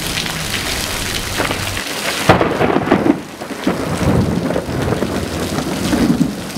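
Monsoon thunderstorm: steady rain, then thunder from a lightning strike breaks suddenly about two seconds in and rumbles on for several seconds.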